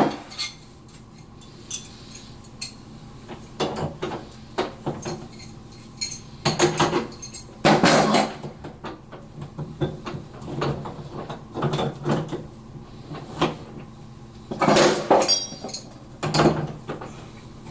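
Irregular metallic clinks and knocks as an angle stop and its compression fitting are handled and fitted onto a copper supply pipe, with busier clusters of clatter about a third of the way in and again near the end.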